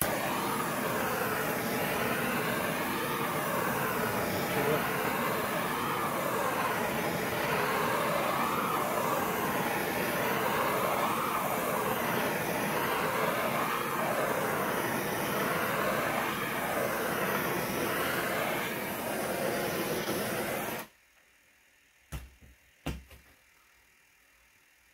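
Handheld gas torch burning with a steady, loud hiss as its flame is swept over freshly poured epoxy to pop surface bubbles. The hiss wavers up and down in pitch as the torch moves back and forth, then cuts off sharply near the end, followed by a few small clicks.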